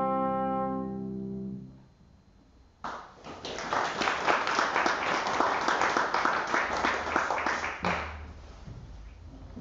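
A sustained closing chord of live instrumental music ends just under two seconds in. About a second later, applause runs for roughly five seconds and then stops.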